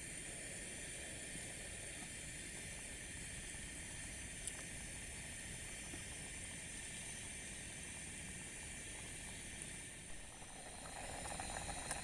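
Fish cooking over the heat just after going into the pot, a steady hiss, with crackling picking up near the end.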